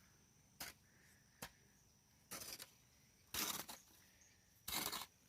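Short swishing rustles in wet grass, about five of them a second or so apart, with a faint steady high whine behind them.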